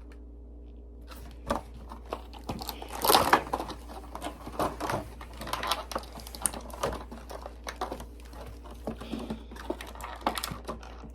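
Irregular clicks, taps and short rustles of small plastic action-figure parts and packaging being handled, loudest about three seconds in.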